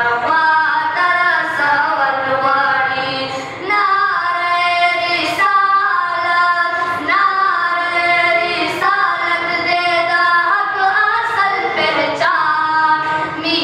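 Boys' high, unbroken voices singing a Pashto naat without instruments, in long held melodic phrases with a short breath break about three and a half seconds in.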